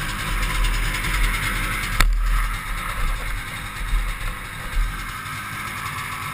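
Ski-Doo Blizzard 5500 snowmobile's 503cc two-stroke engine running while riding, under a heavy low rumble, with a sharp click about two seconds in.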